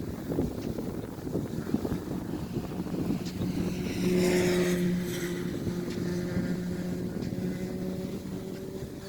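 Nelson P200 big gun sprinkler spraying, its water jet hissing and splashing, loudest about four seconds in as the stream sweeps past. From about three seconds in, a steady engine hum runs underneath.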